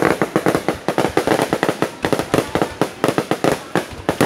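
Aerial fireworks going off close overhead: a rapid, continuous volley of sharp bangs and crackles.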